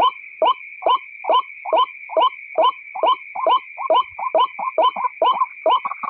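White-breasted waterhen call: a short rising note repeated evenly, about two a second, the monotonous call used to lure waterhens for trapping. A steady high-pitched whine runs underneath.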